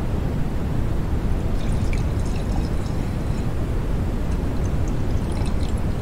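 Beer fizzing and bubbling in a glass: a steady, low, rushing liquid noise with faint tiny crackles about two seconds in and again near the end.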